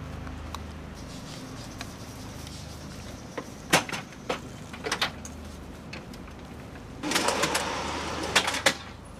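Steady low hum of an idling vehicle engine, with a few sharp metal knocks about four to five seconds in and a louder stretch of scraping and clatter near the end as a casualty stretcher is slid up the ramp into an armoured ambulance.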